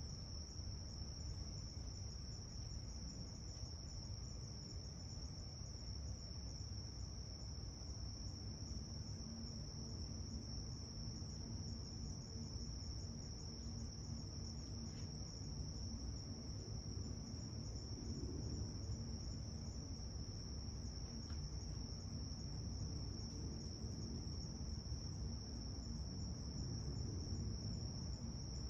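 Crickets trilling steadily at night, one continuous high-pitched note that never breaks, over a low background rumble.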